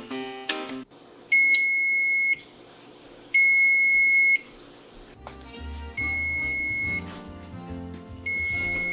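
Electric oven's timer beeping as its countdown runs out at 0:00: four long, steady, high-pitched beeps of about a second each, roughly two seconds apart, the first two loudest.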